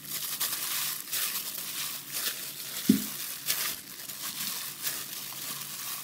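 Gloved hands squeezing and pressing a crumbly flour-and-water dough in a glass bowl: an irregular crinkling, squishing rustle that comes and goes, with one short thump about three seconds in.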